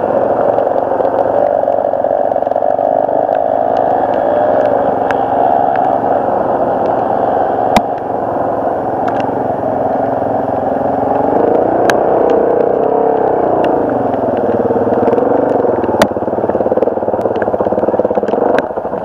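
2007 Suzuki DR-Z400S single-cylinder four-stroke engine running as the dirt bike is ridden, its note rising and falling with the throttle, with a few sharp clicks now and then.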